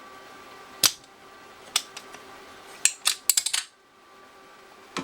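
Sharp clicks and taps of small metal hand tools at a desoldering job: single clicks about a second apart, then a quick rattle of several clicks, over a faint steady hum.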